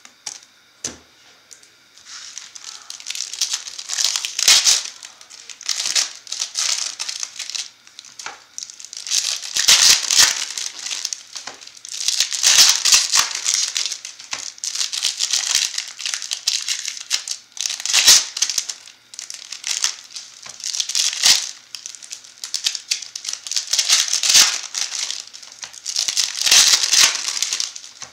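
Foil trading-card pack wrappers crinkling as Bowman Chrome packs are handled and ripped open, in repeated rustling bursts every second or two.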